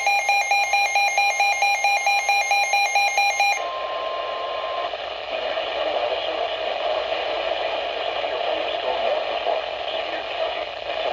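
Midland WR-120 weather radio sounding its alert alarm, a loud rapid pulsing beep, for the first few seconds of a Severe Thunderstorm Warning. The beeping cuts off into a brief steady tone, then the broadcast comes through as heavy static from poor reception of the station.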